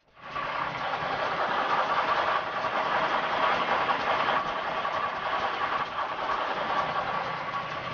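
Semi truck's diesel engine idling steadily, with a thin steady whine above the engine noise.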